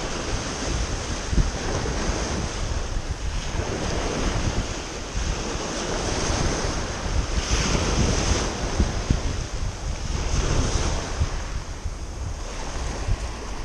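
Small waves breaking and washing up a pebble shore, swelling and easing every few seconds, with wind buffeting the microphone.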